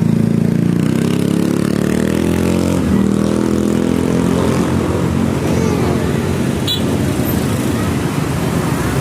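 A bus engine running loudly close by, its pitch rising between one and three seconds in, over road noise. There is a short sharp click near the end.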